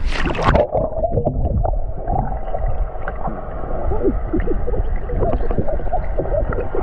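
A splash, then the muffled, dull sound of being underwater in the lake: low rumbling with gurgling and bubbling, heard from below the surface.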